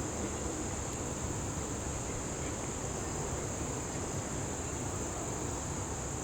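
A steady high-pitched chorus of insects, like crickets, droning without a break over low background rumble.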